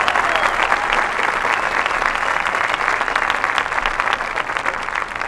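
Large stadium crowd applauding the end of a marching band's show, the clapping slowly dying away.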